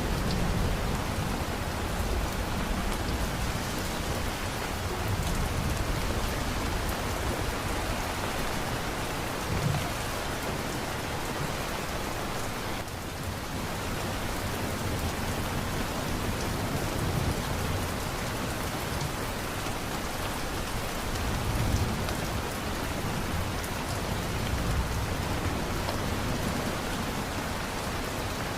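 Steady heavy rain falling on surfaces, with low thunder rumbles swelling and fading now and then beneath it.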